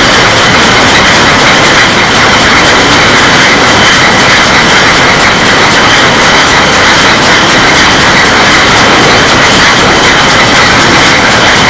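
Beer bottling line running: a dense, continuous clatter of glass bottles on the conveyors over the steady noise of the filling machinery, with a steady high whine. Loud throughout.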